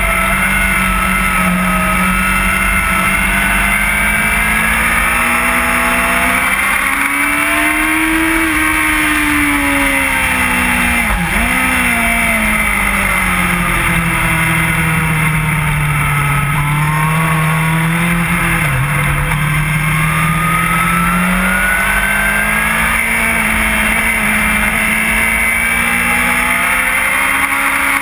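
Onboard sound of an inline-four sports bike engine on a racetrack, pulling hard through the gears. Its pitch rises and falls slowly, with a sharp dip and recovery about eleven seconds in and a smaller dip later, over a constant heavy rush of wind noise.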